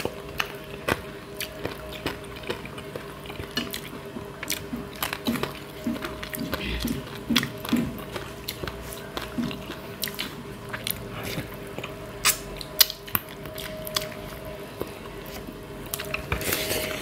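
People eating fish curry and rice with their fingers from steel plates: frequent small clicks and taps of fingers and food on the plates, with chewing, over a faint steady hum.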